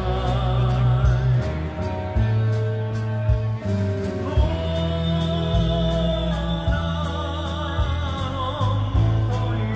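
Live band music with a male lead singer holding notes with vibrato, over electric guitar, keyboard and a bass line with a steady beat.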